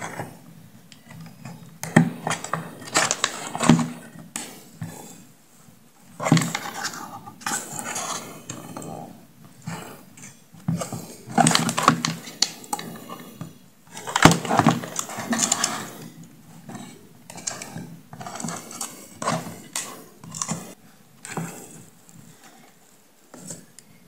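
Irregular clicks, knocks and clattering as the plastic housing and parts of a Bluetooth speaker are handled on a workbench, in several short busy bursts.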